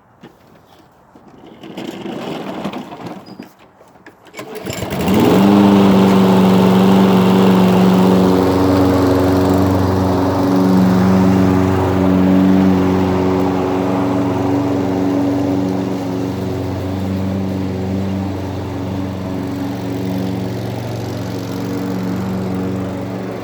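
Toro Recycler walk-behind mower's small engine being pull-started: a first attempt sputters briefly, then about four and a half seconds in it catches, revs up and settles into steady running.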